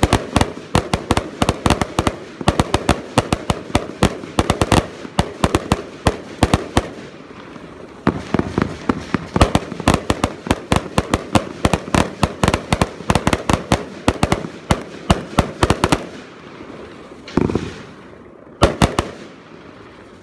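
Multi-shot firework ("Green tail purple star w green") firing shot after shot, several sharp bangs a second. The barrage stops about three-quarters of the way through, and two last short bursts follow.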